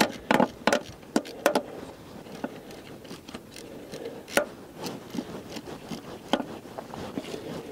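Scattered light clicks and taps of hands and a tool working on the engine's valve-cover area. They come several close together in the first second and a half, then more sparsely.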